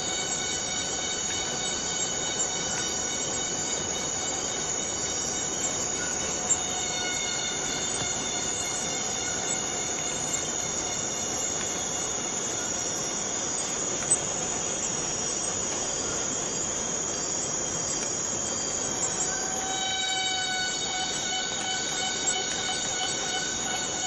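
Bornean rainforest cicadas singing: a dense, steady buzzing chorus with a steady, horn-like whistling tone over it. The tone fades for a few seconds in the middle and comes back strongly near the end.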